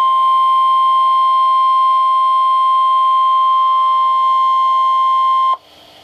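NOAA Weather Radio's 1050 Hz warning alarm tone, one steady high-pitched tone that cuts off sharply about five and a half seconds in, leaving faint radio hiss. The tone marks a warning-level alert about to be broadcast, here a severe thunderstorm warning.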